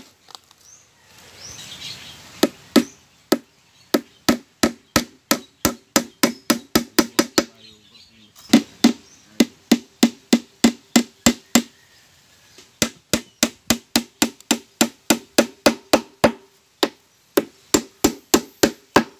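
Claw hammer driving nails through a plywood cover into the wooden frame of a small boat: runs of quick blows, about three a second, each with a short ring, broken by brief pauses between nails.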